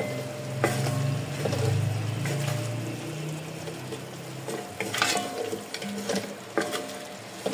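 A wooden spoon stirring chicken pieces in a large metal degchi, scraping and knocking against the pot a few times over the sizzle of the chicken frying in oil with ginger-garlic paste and a little water. A low hum runs under the first few seconds.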